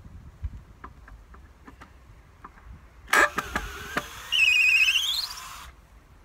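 A board nailed to a freshly milled ash beam being pried off: a sharp crack about three seconds in, then a nail squealing out of the hard ash over a rasping grind for over a second, the squeal rising in pitch at the end. Light footsteps and small clicks come before.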